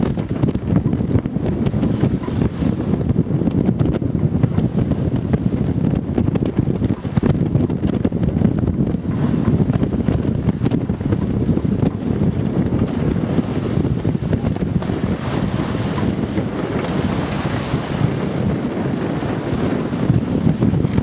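Wind buffeting the microphone aboard a sailboat under sail, with sea water rushing along the hull. A brighter hiss of water comes up in the second half.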